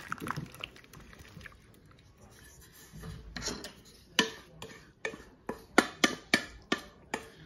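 Chopped rhubarb and strawberry filling poured and scraped out of a mixing bowl into a glass baking dish, quiet wet handling sounds at first. From about four seconds in, a run of sharp taps, two or three a second, of a utensil knocking against the dishes to clear the last of the filling.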